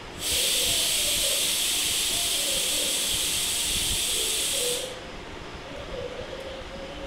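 A loud, steady hiss lasting about four and a half seconds, starting and stopping abruptly.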